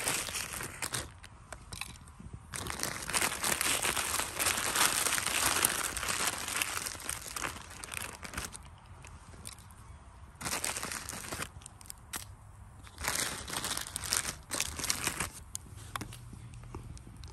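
Plastic instant-noodle wrapper crinkling and dry ramen noodles crunching as they are handled and broken into a cup, in four bouts of crackly rustling with quieter gaps between.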